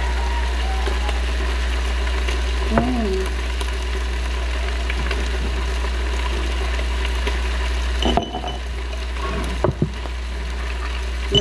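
Squid sizzling on an electric grill pan, a steady hiss over a low steady hum. The hiss drops a little about eight seconds in, and a few sharp clicks of tongs and tableware follow near the end.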